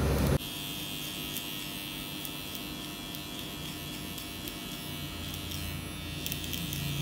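Cordless hair clipper buzzing steadily as its blade cuts a fade into short hair on the side of the head. The level drops suddenly about half a second in, then holds even.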